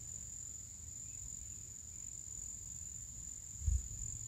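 Insects on a summer evening keep up a steady, high-pitched chorus, with a low rumble beneath it and a brief low thump near the end.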